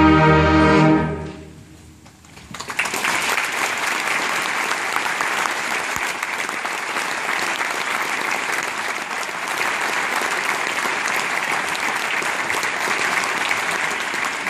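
A school concert band holds its final chord, cuts it off about a second in and lets it ring away in the hall. Audience applause breaks out about two and a half seconds in and carries on steadily.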